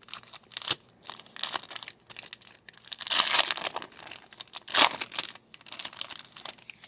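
Plastic wrapper of a trading-card pack being torn open and crinkled by hand, in irregular rustles with a louder crackle about three seconds in and another just before five seconds.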